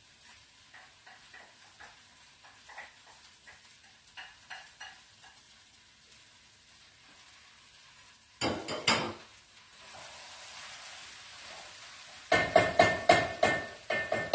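Spoon working in a cooking pot of frying chicken and herbs: light scrapes and taps, then a clatter, a short stretch of sizzling, and a rapid run of ringing clinks and knocks against the pot as the mixture is stirred near the end.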